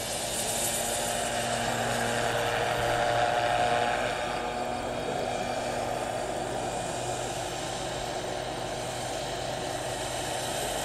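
Turbine-powered radio-controlled scale Agusta A109 helicopter in flight: a steady turbine whine over the rotor noise, growing a little louder three to four seconds in, then easing.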